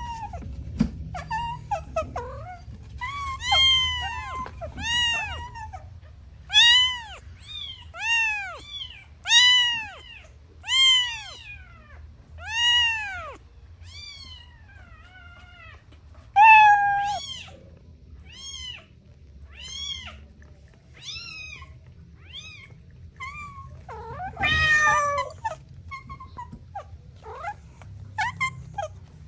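Kitten meowing over and over, high-pitched calls about one a second, each rising then falling in pitch; the calls grow fainter after the middle, and a longer, harsher meow comes near the end.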